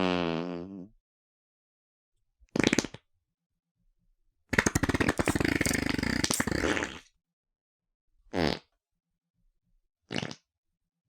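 A run of separate fart sound effects with silent gaps between them: a short pitched one at the start, a brief one about three seconds in, a long rapid sputtering one of about two and a half seconds in the middle, then two short ones near the end.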